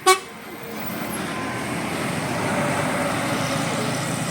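A short horn toot right at the start, then a heavy road vehicle going past with steady engine and road noise.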